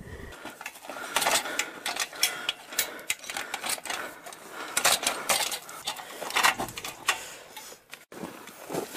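Irregular rapid clicking and rattling, mechanical-sounding, with a brief dropout about eight seconds in.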